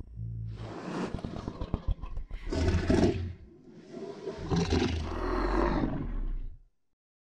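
Designed roar sound effect for the giant ape Kong: a rough, raspy growl that swells to a loud roar about three seconds in, eases off, then rises into a second long roar that cuts off sharply.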